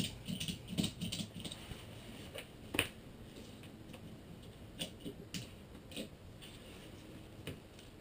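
Scattered light taps and clicks of hands working a sheet of aluminum skin onto a trailer's tail section, with one sharper click about three seconds in.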